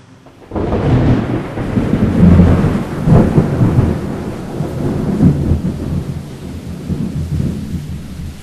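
Thunder: a sudden crack about half a second in, then a long rolling rumble with rain that slowly fades.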